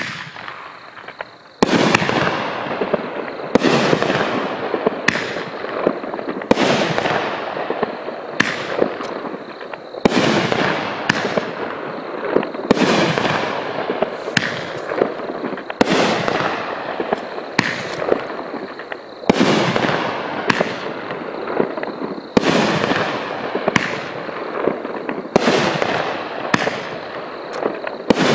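Southern Thang – Gator consumer firework cake firing shot after shot, a sharp bang about every second to second and a half. Each bang is followed by a crackling, fizzing tail as the stars burn out, running into the next shot.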